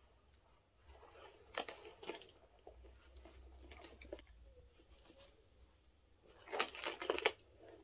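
A red leather Gucci Rajah tote with chain-link shoulder straps being handled and set down on a table: rustling and small clinks of the chains, in two spells, about a second in and again near the end.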